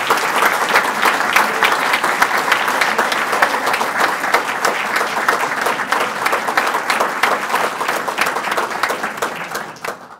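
Audience applauding, dense and steady, dying away near the end.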